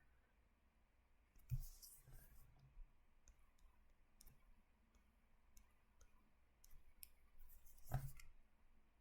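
Near silence broken by faint, scattered clicks and taps from writing or drawing. A louder tap comes about one and a half seconds in and another near the end.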